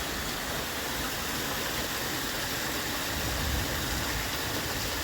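Heavy rain falling steadily, with water pouring from a house downspout; a continuous even hiss that swells slightly about three and a half seconds in.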